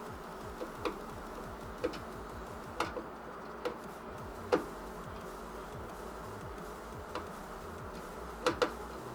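Screwdriver and screws ticking and clicking against metal while a motherboard is being screwed into a PC case: irregular light clicks, a quick pair near the end, over a faint steady hum.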